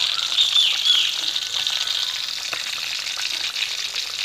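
Pork belly pieces deep-frying in hot oil in a wok: a steady, dense sizzle full of fine crackles. The skin is already crisp, near the end of frying.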